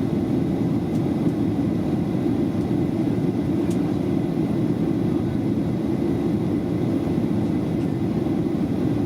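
Steady rumbling cabin noise inside a Boeing 737-700 in flight: airflow over the fuselage and the drone of its CFM56-7B engines, heard from a window seat.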